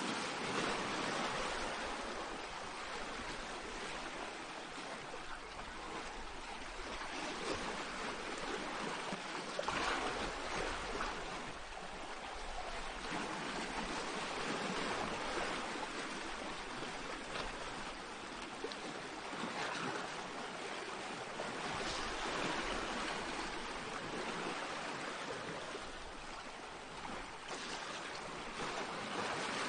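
Small sea waves washing onto a pebble shore, the wash swelling and easing every few seconds.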